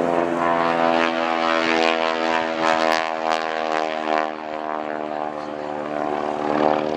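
A single-engine propeller aircraft flying past, its engine and propeller giving a steady, even note that is loudest in the first few seconds and eases a little after about four seconds.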